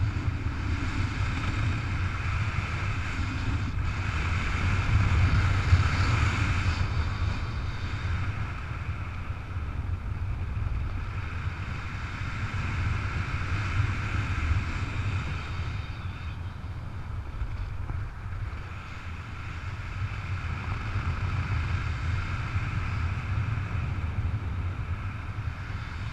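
Airflow of a paraglider in flight rushing and buffeting over the camera microphone: a steady wind rush heavy in the low end that swells about five seconds in and eases somewhat later on.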